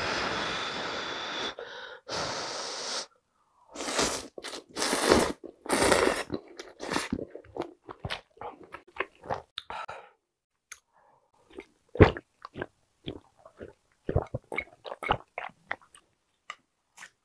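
A person slurping glass noodles and beef-rib soup in long noisy slurps, then chewing with open-mouth wet smacks and clicks; one sharper knock about twelve seconds in.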